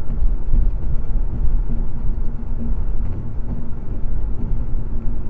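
Steady road and engine noise of a car cruising at highway speed, heard from inside the cabin: a low rumble with a faint steady hum.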